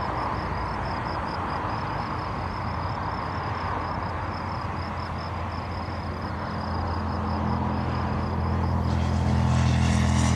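Airbus A350-900 jet engines, heard as a steady rushing noise. A low hum comes in about two-thirds of the way through and grows louder toward the end as the airliner comes in to land.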